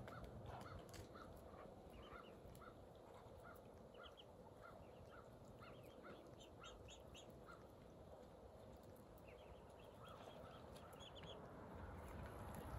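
Faint bird calls: a short call repeated about twice a second, fading out past the middle, with scattered higher chirps in between.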